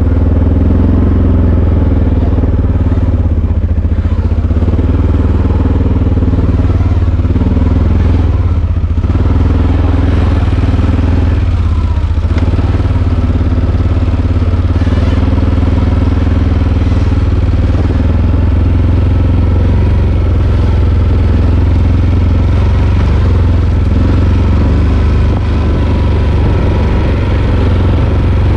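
ATV (four-wheeler) engine running steadily while riding, with a strong low hum that holds throughout.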